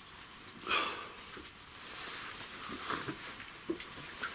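A man with a cold breathing and sniffing close to the microphone, with a short sharp breath about a second in. Scattered soft steps and knocks as he walks over the ground.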